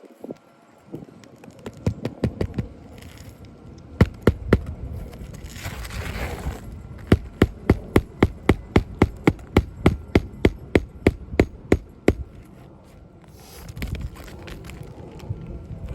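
Hammer striking repeatedly during work on a 3-tab asphalt shingle roof. A few light taps come first, then a steady run of blows at about four a second that lasts some five seconds.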